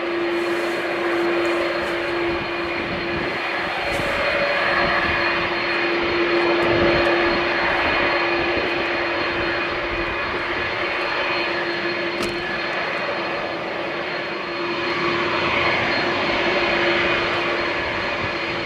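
Airbus A330-200's twin jet engines running at low power as the airliner taxis: a steady jet whine with a strong steady hum beneath it, swelling a little twice.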